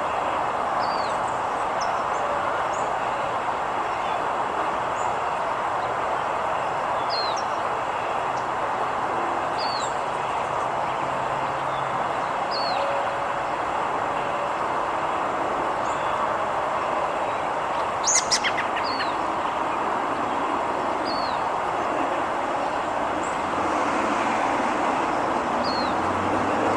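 A small bird gives single short chirps every second or two over a steady rush of traffic noise. A brief sharp sound cuts in once, about eighteen seconds in.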